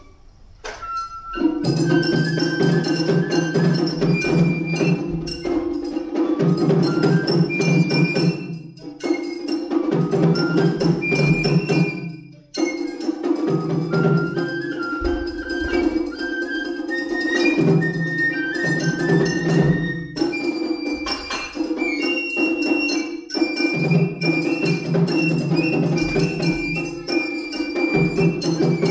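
Japanese matsuri-bayashi festival music: a shinobue bamboo flute plays a melody of short high notes over fast, busy strokes on shime-daiko and ōdaiko drums. It starts about a second and a half in after a brief pause, with a short break near the middle.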